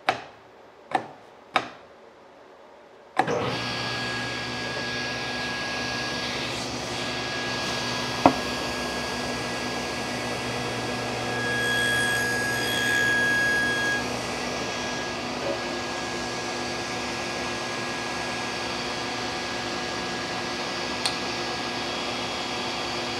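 A few sharp wooden knocks, then a table saw switched on about three seconds in and running steadily. Near the middle the blade makes a shallow cut across a pine panel, swelling the sound for a couple of seconds; the blade is set too low for the tenon shoulder.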